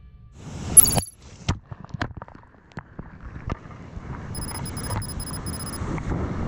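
Whitewater rushing past a kayak, heard close up and building steadily after the first seconds. It is preceded by a short rising whoosh and a scatter of sharp clicks and knocks. Fast high electronic ticks, like a typing effect, run for about a second and a half in the middle.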